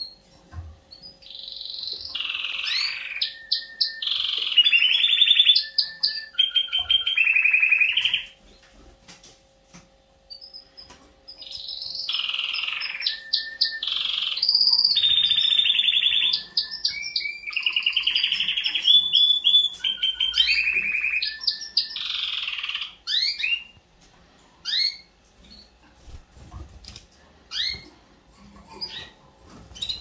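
Domestic canaries singing before the breeding season: two long song phrases of rapid trills and rolling notes, with a short pause between them, then scattered short chirps in the last several seconds.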